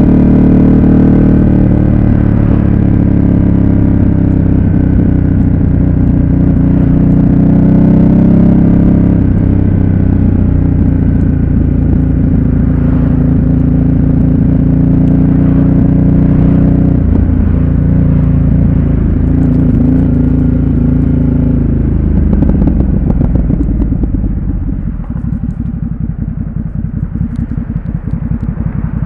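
Ducati Supersport S's 937 cc L-twin engine running on the road, its pitch rising and falling several times with throttle and gear changes, then dropping to a quieter, pulsing run for the last few seconds. Wind buffets the microphone throughout.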